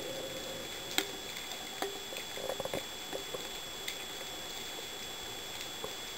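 Underwater sound picked up inside a camera housing: a steady hiss with a faint high whine, broken by scattered sharp clicks, with a short cluster of crackles about two and a half seconds in.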